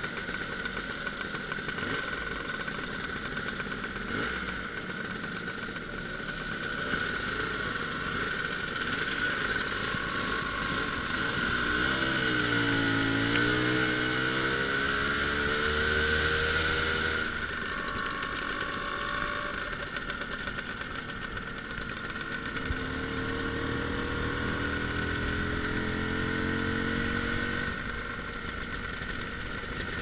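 Motor scooter engine running on the move. Its pitch dips as it slows about halfway through and then picks up again, and it climbs slowly as it accelerates later on.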